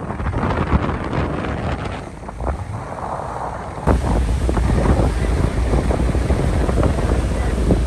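Wind buffeting the microphone on the open deck of a passenger ferry at sea, over the rush of water. About four seconds in it jumps to a louder, deeper rumble of wind and the churning wake at the stern.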